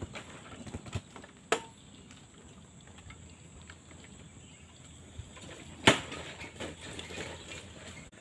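Faint rustling through forest undergrowth with a few light ticks and two sharp snaps, one about a second and a half in and a louder one near six seconds.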